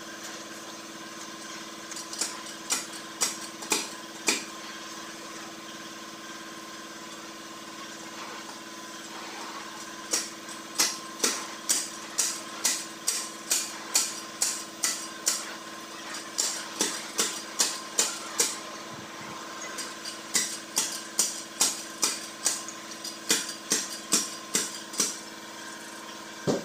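Sharp metallic taps like hammer strikes, about two a second, in runs of several seconds with pauses between them, over a steady machine hum.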